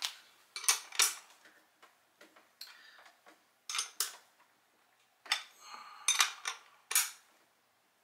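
Metal wrench clinking and clicking against a bicycle's front axle nut in short, irregular strokes as the axle nut is tightened.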